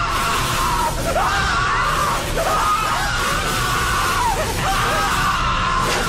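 A man screaming in long, wavering cries over a dense noisy crackle and film score, as he is electrocuted on high-voltage equipment.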